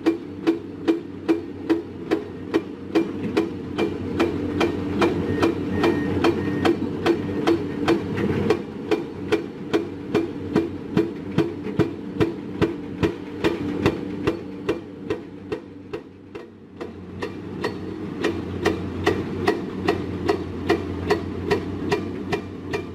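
Steady pounding, about two to three sharp strikes a second, over a steady engine drone from heavy construction machinery.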